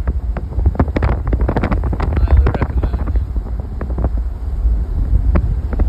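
Wind buffeting the microphone at the open window of a moving car, over a steady low road rumble, gusting unevenly throughout.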